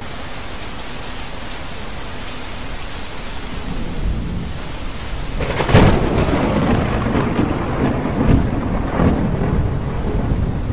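Heavy rain falling steadily, growing louder partway through, with a sharp thunderclap a little past halfway, followed by rolling rumbles of thunder.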